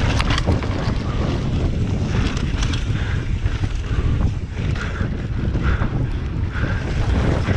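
Wind buffeting the microphone of a body-mounted camera as a mountain bike rolls along a dirt trail, with tyre noise and a few clattering knocks from the bike over rocks about a quarter-second in.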